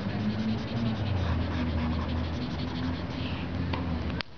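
Felt-tip marker scribbling quickly on paper, a rapid run of scratchy strokes, over a steady low hum. The sound drops off suddenly near the end.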